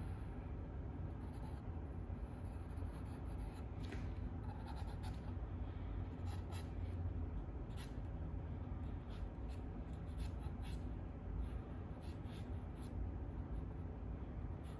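Drawing tool scratching across sketchbook paper in short, irregular strokes, over a steady low hum.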